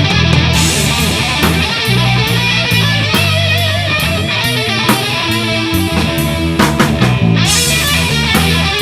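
Live rock power-trio jam: electric guitar playing a lead line with wavering, vibrato-laden notes over a bass guitar line and a drum kit with steady cymbal strokes.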